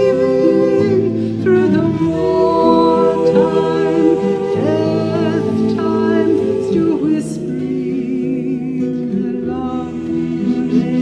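Women's choir singing a slow song in harmony, long held notes, with the words 'through the war time, death time, still whispering the love'.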